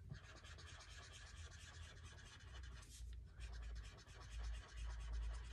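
Faint scratching of a felt-tip marker scribbling rapidly back and forth on paper, colouring in a filled area.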